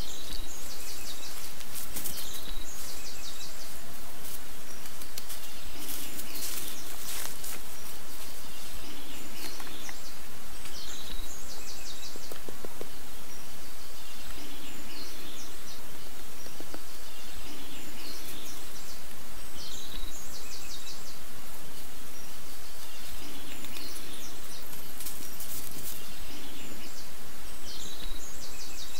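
Woodland ambience: a steady rushing background with a bird singing a short, high phrase over and over, every few seconds.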